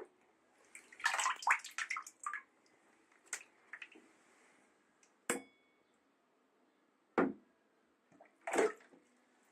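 Water splashing and sloshing in short bursts, followed by a sharp click with a brief ringing and two separate knocks.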